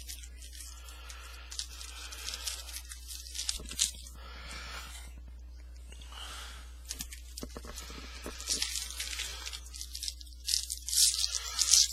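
Foil wrapper of a trading-card pack being torn open and crinkled as the cards are handled, with the crinkling getting louder and busier toward the end.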